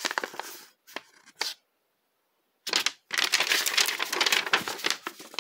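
A paper instruction sheet being unfolded and handled, crinkling and rustling, with a short pause of about a second in the middle.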